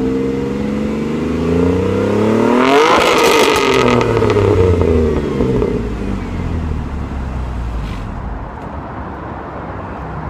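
Ford Mondeo ST220's 3.0-litre V6 revved in place through an aftermarket JP exhaust: the note climbs quickly to a rasping peak about three seconds in, then falls back and settles to idle.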